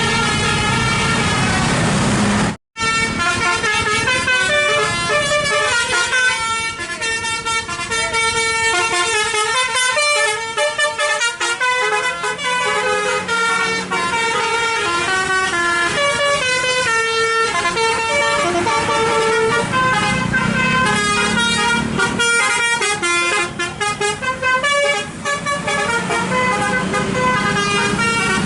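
Telolet basuri musical bus horn playing tunes: a quick run of stepping horn notes in a melody. It cuts out sharply for a moment about two and a half seconds in, then carries on with more tunes.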